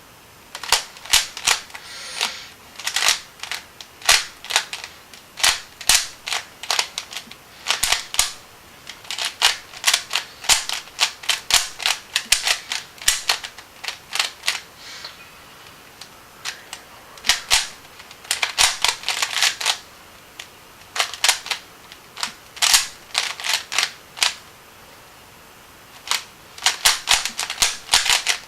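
A Rubik's Cube being speedsolved: its plastic layers are turned in quick bursts of rapid clicks, with short pauses between move sequences.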